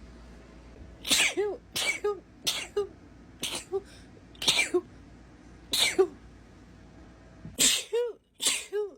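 A woman in a sneezing fit, sneezing about eight times in quick succession, roughly once a second. Each sneeze is a sharp burst of air ending in a brief high voiced squeak.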